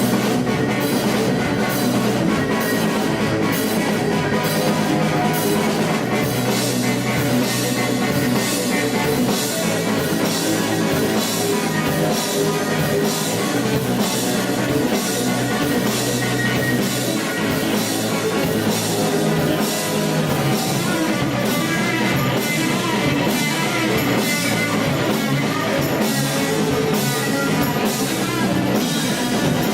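Rock band playing live: electric guitar and drum kit, with cymbals struck on a steady beat.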